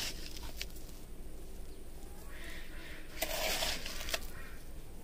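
A handful of dry sand sprinkled by hand onto a seed bed, a soft pattering hiss about three seconds in, followed by a single light click.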